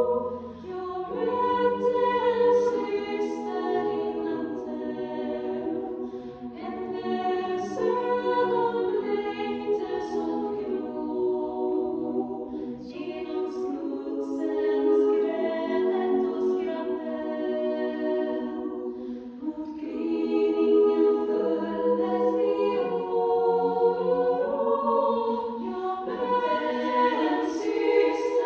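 Female choir singing a cappella in Swedish, several voice parts in close harmony on sustained notes, with the sharp 's' sounds of the words now and then.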